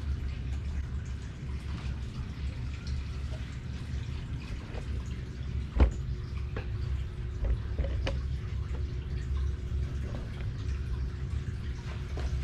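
Steady low room hum with scattered small clicks and knocks of handling. One sharp knock about six seconds in, as the camera on its tripod is bumped and re-aimed.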